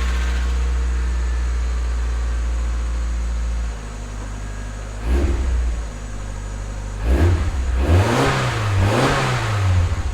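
1996 Mazda Miata's 1.8-litre four-cylinder engine just after starting, on new spark plug wires fitted to cure a misfire: it holds a steady fast idle, drops lower about four seconds in, gets a short throttle blip about a second later, then is revved up and down several times near the end. The owner finds it no longer misfiring.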